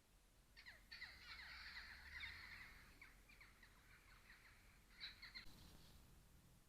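Faint harsh bird calls, cawing like crows: a dense chattering run of short downward-sliding calls lasting about four seconds, then a short final burst.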